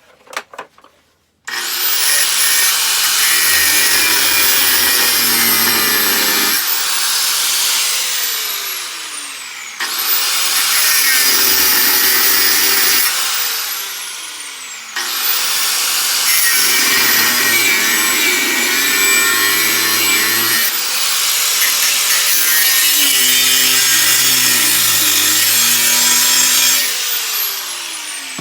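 An electric power tool cutting the steel of a forged blade. It runs in several long stretches, its whine rising as it spins up at each start and falling as it winds down.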